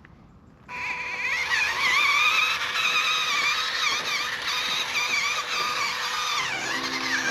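Small RC crawler's electric motor and gear train whining, starting suddenly about a second in, its pitch rising and falling with the throttle as it works over rocks. Music comes in near the end.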